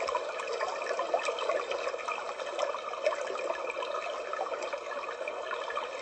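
Homedics white noise sound machine playing its recorded brook sound through its small speaker: steady trickling, flowing water, with birds chirping faintly in the background.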